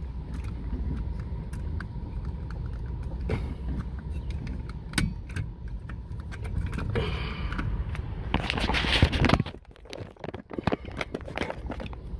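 Handling noise from a phone held against skin: scratchy rubbing and small clicks right on the microphone over a steady low vehicle rumble. A louder rush of rubbing comes about eight to nine seconds in, and then the low rumble drops away.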